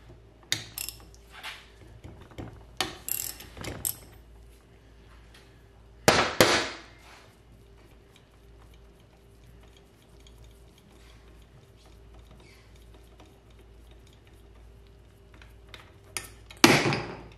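Wrench ratcheting in short runs of clicks as the fork cap is undone from a motorcycle fork tube. There are two louder metallic clatters, one about six seconds in and one near the end.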